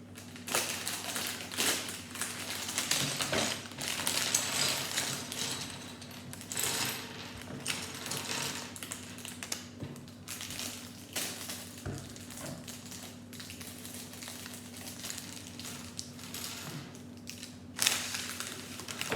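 Plastic Lego parts bags being torn open and handled, with irregular crinkling rustle and small hard plastic pieces clicking and rattling, over a faint steady low hum.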